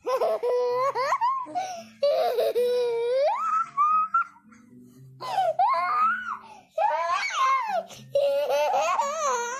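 A toddler boy laughing and giggling in several high-pitched bouts, with short pauses between them.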